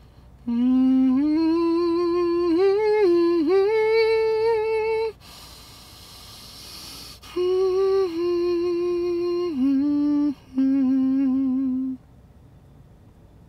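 A person humming a slow tune: two phrases of held notes that step up and down in pitch, with a short breathy hiss between them.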